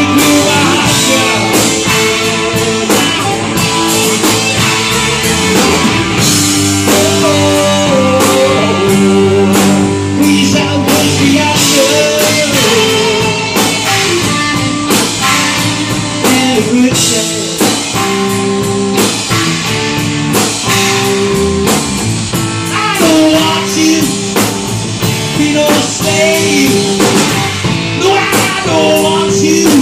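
Live rock band playing loudly: distorted electric guitars, electric bass and a drum kit keeping a steady beat, with a man singing lead.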